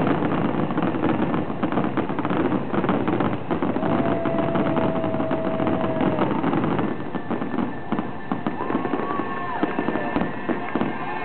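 Aerial fireworks display: a dense, rapid barrage of shells bursting with crackles and bangs. A long steady tone sounds over it about four seconds in, and a shorter, higher one near the end.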